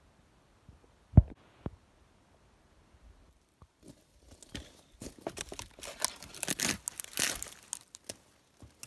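A sharp knock about a second in, then a smaller one; from about four seconds in, dense crackling and rustling of dry pine needles and sticks being handled and piled onto a debris shelter.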